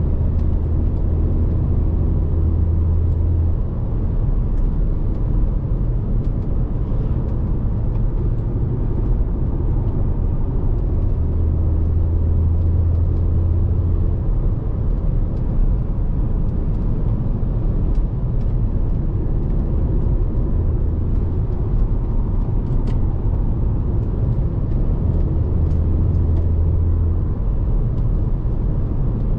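In-cabin sound of a 2012 Audi Q3's 2.0 TFSI turbocharged four-cylinder petrol engine cruising, a steady low drone mixed with tyre and road noise. A deep hum swells for a few seconds three times.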